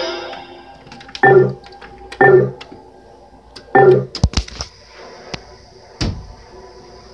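Toy coin slot machine giving three short electronic tones, with sharp plastic clicks and a couple of low knocks after them.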